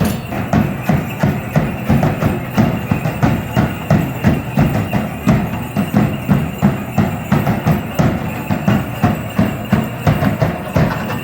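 Drums played in a steady, even beat for a traditional Mexican danza, about two to three strokes a second without a break.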